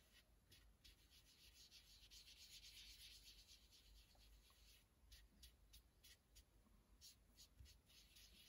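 Faint, soft strokes of a foam sponge dauber brushing ink across card stock, coming in quick runs of short swipes, mostly in the second half.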